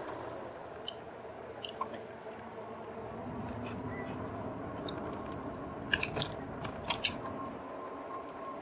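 Electric bike rolling along a street and sidewalk: steady tyre and wind noise with a faint steady whine. A short, very high-pitched sound cuts off about half a second in, and a cluster of sharp clicks and rattles from the bike and its front basket comes between about five and seven seconds in, as it bumps over the pavement.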